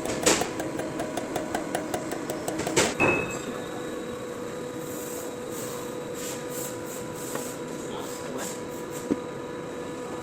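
Rapid metallic clicking and knocking of tools and metal parts being worked during a pump-motor assembly, ending after about three seconds with a louder knock. After that a steady hum runs on, broken by a few light taps.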